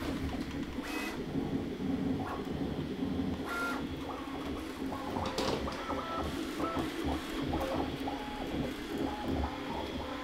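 Bambu Lab A1 3D printer running a print: its stepper motors whine in short steady tones that jump from pitch to pitch as the print head and bed change speed and direction. There is a low steady hum underneath and a few sharp clicks.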